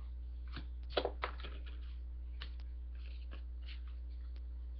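Hockey trading cards being handled: a few faint clicks and rustles as cards slide against each other, the two loudest about a second in, over a steady low hum.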